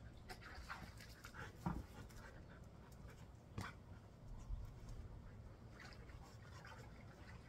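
A dog panting on a hot day, a run of short breathy puffs, with two dull thumps, one a little under two seconds in and one about halfway through.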